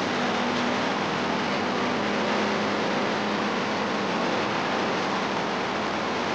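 Steady city ambience: a constant wash of distant road traffic noise, with no distinct events.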